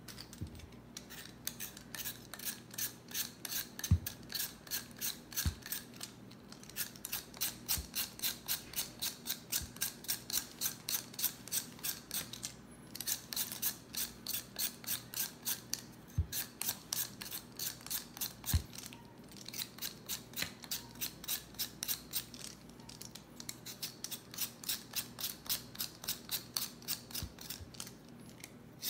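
A blade scraping the skin off a russet potato in quick, even strokes, about three a second, with a couple of short breaks. A few dull knocks, the loudest about four seconds in.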